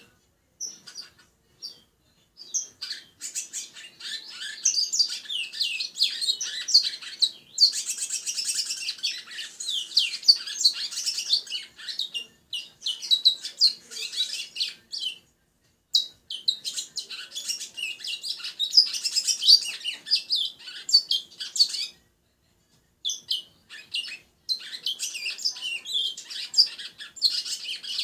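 Caged songbird, a 'congo', singing long, rapid twittering phrases in three long bouts, with short breaks about halfway through and near the end.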